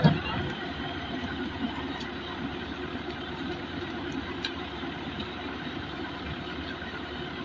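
An engine running steadily, with a brief thump right at the start.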